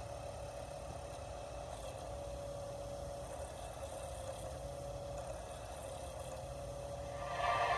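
Faint steady low hum and hiss, with music coming in about seven seconds in.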